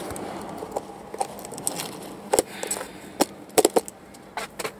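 Handling noise inside a car: a scattered few sharp clicks and knocks over a low hiss, the strongest about two and a half and three and a half seconds in.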